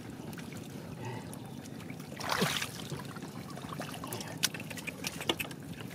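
Shallow muddy water splashing and trickling as hands and legs move through a flooded, freshly plowed field. There is a louder splash a little over two seconds in and a few small clicks later on.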